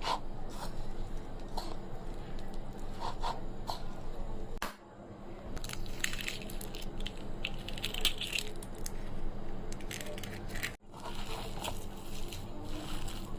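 Scattered clicks and soft squishing handling noises, broken twice by abrupt cuts.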